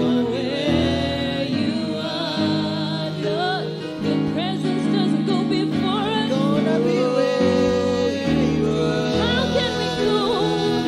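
A woman singing a gospel worship song into a microphone, her voice gliding between notes over instrumental accompaniment that holds sustained chords.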